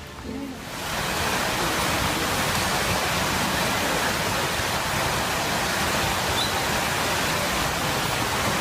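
Waterfall: a steady, dense rush of falling water that swells in over the first second and then holds even.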